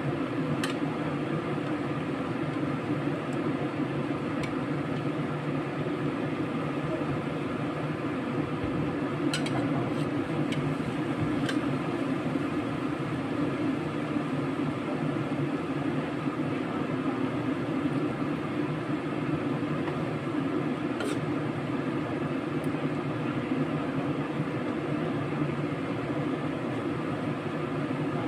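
Steady hiss and rumble of a stove burner under a wok of simmering soup, with a few sharp clicks of a metal ladle against the wok near the middle.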